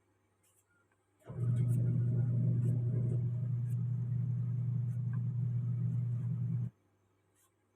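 A small electric motor runs at a steady pitch for about five seconds, starting and stopping abruptly.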